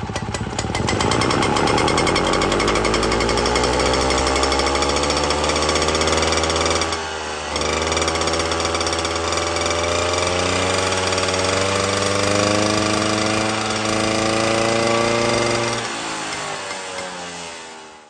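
Robin EC17 175cc single-cylinder two-stroke engine revving with no load. It climbs steadily from low revs to around 10,000 rpm over the first several seconds, dips briefly about seven seconds in, then holds at full speed with a steady high buzz. The sound falls away near the end.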